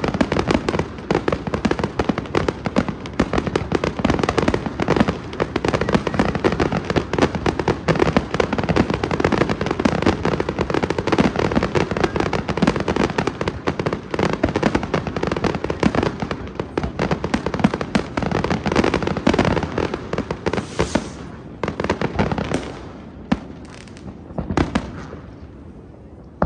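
Fireworks display: a dense, continuous barrage of bangs and crackles that thins out near the end into a few separate bangs.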